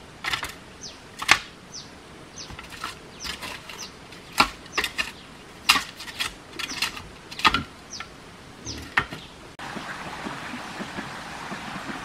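Metal shovel blade striking and scraping through loose dirt, roughly once a second, with short falling bird chirps between the strokes. Near the end this cuts off and a steady rushing sound takes over.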